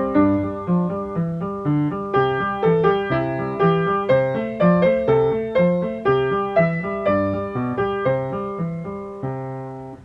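Background piano music: an even, gentle run of notes, about two or three a second, closing on a held chord that stops near the end.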